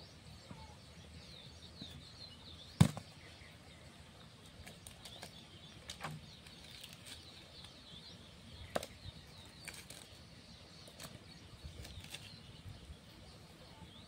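Scattered sharp snaps and knocks from a wood fire in a brick-and-stone hearth as its sticks are tended, the loudest about three seconds in, over steady high bird chirping.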